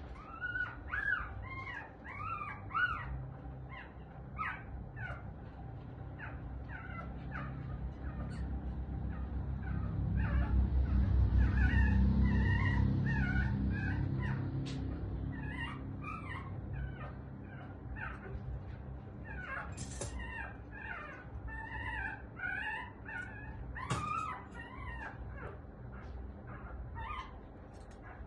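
A small animal whimpering in many short, high-pitched cries throughout. About a third of the way in, a low rumbling noise swells, becomes the loudest sound, then fades.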